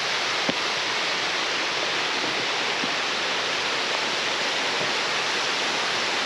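Rushing water: a steady, even hiss-like roar of a waterfall or fast-flowing stream, with no change in level.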